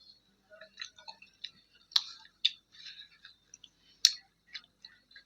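A person eating close to the microphone: chewing with moist mouth clicks and lip smacks, three sharper smacks about two seconds in, half a second later, and about four seconds in.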